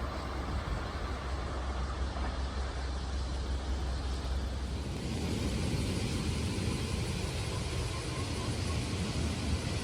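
Steady rumble of passing vehicles, growing a little louder and brighter about halfway through.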